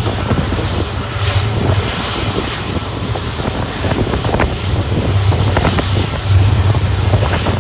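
A WDP4 diesel locomotive's EMD 16-cylinder two-stroke engine humming steadily, with rushing wind and irregular clicks and knocks from the train running on the track.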